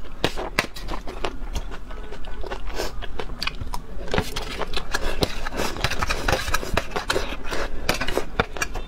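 Metal spoon scraping and clinking against a stainless steel tray while scooping up chili oil, a dense run of short clicks and scrapes, with wet slurping from the spoon near the end.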